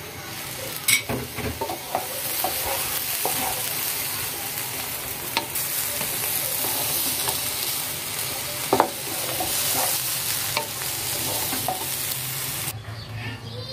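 A wooden spatula stirring pulao rice with peas and carrots in a hot nonstick pot, the rice sizzling steadily in the oil, with a few sharp knocks of the spatula against the pot. The sizzle cuts off suddenly near the end.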